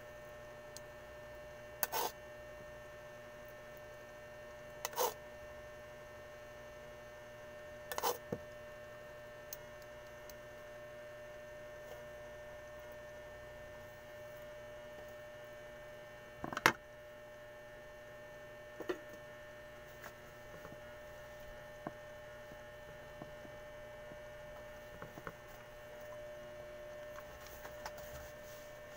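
A steady, faint electrical hum, cut every few seconds by a short sharp clink of a spoon against a plate while eating. The loudest clink comes about halfway through.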